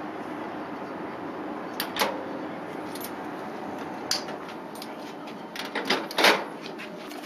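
Spatula and frying pan clinking and knocking against the gas stove a few times over a steady low hiss. The loudest clatter comes near the end, as the pan is taken up off the burner.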